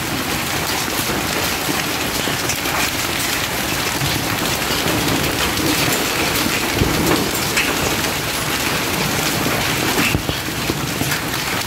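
Heavy rain falling steadily, with close drops spattering near the microphone.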